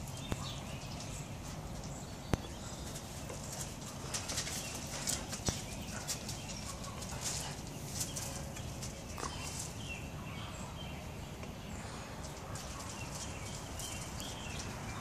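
Two dogs' claws clicking and paws scuffling on concrete as they tug and circle each other, in many short, irregular scrapes. Short chirps sound in the background.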